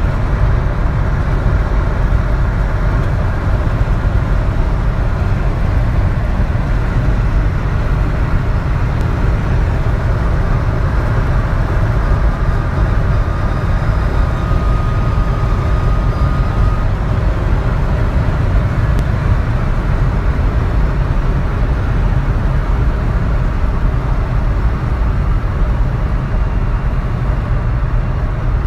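Ford Fiesta Mk6 1.25 four-cylinder petrol car driven flat out near top speed, a steady heavy drone of engine, road and wind noise. A thin, steady whistle rides over it and stands out more clearly for about five seconds midway through.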